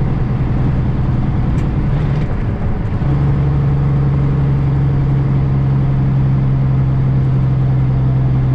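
Semi-truck diesel engine heard through its exhaust stacks, a loud, deep, steady drone. The note steps up slightly about three seconds in and holds.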